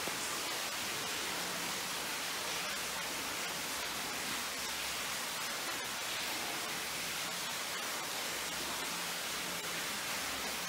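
Steady, even hiss with no distinct events, the noise of a camera recording underwater.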